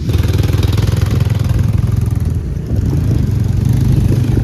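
A motor vehicle's engine running steadily at low revs, a continuous low hum with road noise over it.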